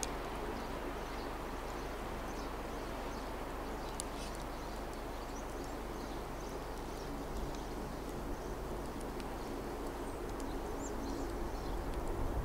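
Steady woodland outdoor ambience: an even hiss with faint, brief high bird chirps and a few small ticks here and there.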